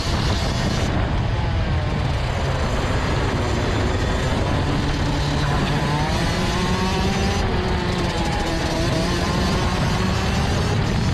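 Rotax Max DD2 125 cc two-stroke kart engine running hard at racing speed. Its pitch rises and falls with the throttle through the corners, under a steady rush of noise.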